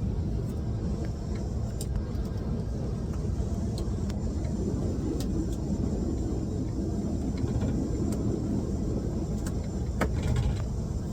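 Steady low rumble of an airliner's engines and airframe heard inside the passenger cabin as the plane moves toward takeoff, with a few faint clicks, one near the end.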